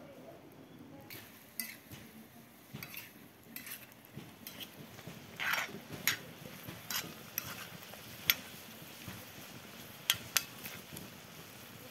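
A metal spoon stirs pieces of goose in steaming broth in a large iron sac pan, clinking and scraping against the pan again and again. There is a longer scrape about five and a half seconds in.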